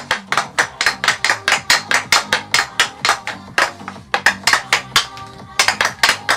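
Hockey stick blade rapidly tapping a golf ball back and forth on a stickhandling board during a stickhandling drill: quick, uneven clicks, several a second.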